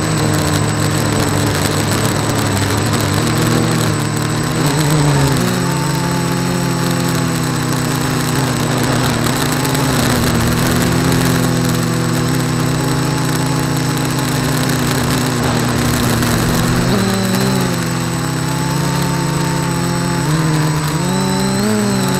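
H-frame quadcopter's electric motors and propellers buzzing steadily, heard from its onboard camera over a hiss of wind and prop wash. The pitch dips and rises a few times with throttle changes, around five seconds in and again near the end.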